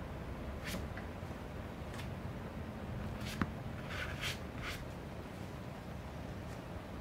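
A stiff flat brush swishing across watercolour paper in short strokes, about half a dozen in all, over a low steady hum, with a single small click about three and a half seconds in.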